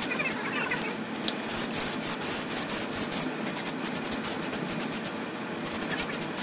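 Rapid rubbing and scraping by hand against the bare steel frame of a John Deere 210 garden tractor, many quick strokes in a row.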